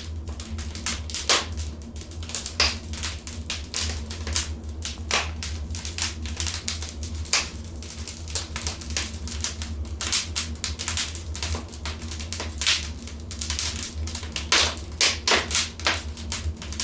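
Wood fire crackling: irregular snaps and pops, a few louder ones, over a steady low rumble of the flames.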